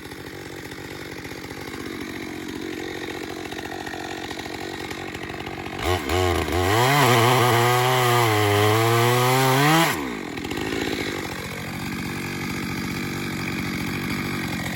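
Two-stroke chainsaw idling, then about six seconds in opened up to full throttle for about four seconds, its pitch dipping and rising under load as it cuts into the trunk during a felling back cut, before dropping back to idle.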